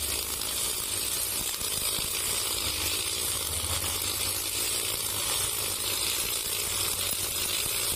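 Brush cutter running steadily, its nylon trimmer line whipping through short grass with a continuous hiss.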